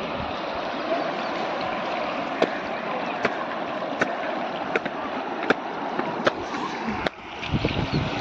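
Shallow river water rushing steadily over rocks, with sharp clicks roughly once a second from about two seconds in, and a brief dip then low rumble near the end.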